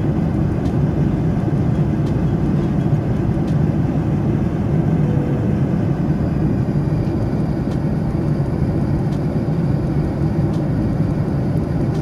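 Steady cabin noise of a Boeing 787-9 airliner in flight: an unbroken low rumble and rush of engine and airflow noise heard from inside the passenger cabin. It cuts off suddenly at the end.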